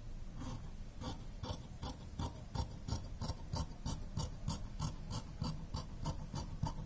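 Tailor's shears cutting through blouse fabric: a quick, even run of snips, about four a second, as the blades open and close along the cut, starting about half a second in.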